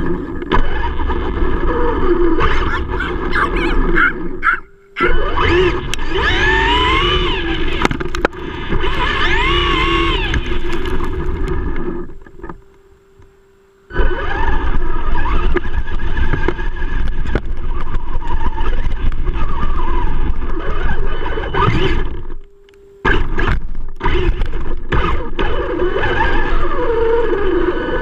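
Traxxas E-Revo RC truck's electric motor and drivetrain whining with a rough rattle from the chassis and tyres, heard from a camera mounted on the truck. The whine rises and falls with the throttle, and the sound drops away briefly about 5 s in, for a couple of seconds near the middle, and again shortly before the end.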